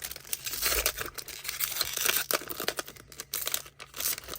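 Plastic packaging crinkling and rustling as it is handled and crumpled, with dense, irregular crackles.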